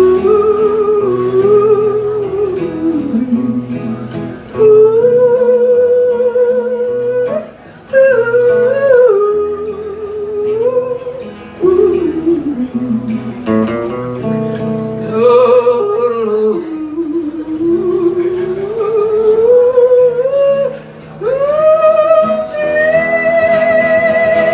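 Live country music: a man singing wordless, yodel-like long held notes that slide between pitches, with vibrato, over acoustic guitar, ending on a high held note.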